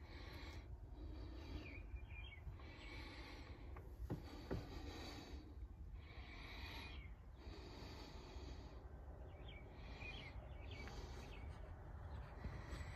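Quiet, regular breathing close to the microphone, a breath about every second and a half, over a low steady rumble.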